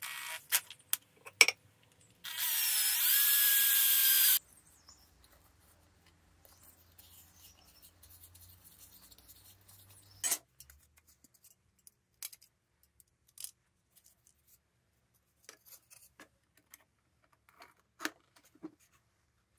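Cordless drill running steadily for about two seconds, starting a couple of seconds in. Afterwards, scattered light clicks and knocks of small parts being handled.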